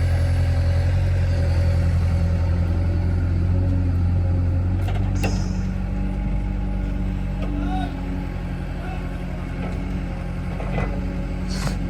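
Heavy diesel engine of earth-moving machinery running steadily, its note changing about five seconds in. Brief sharp sounds come near five seconds and again near the end.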